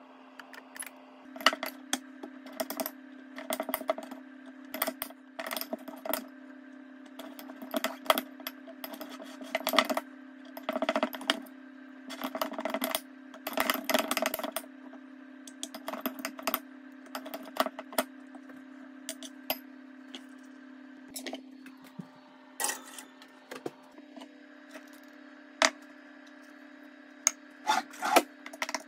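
Kitchen clatter: irregular clinks and taps of utensils, a metal muffin tin and glass bowls being handled, over a steady low hum.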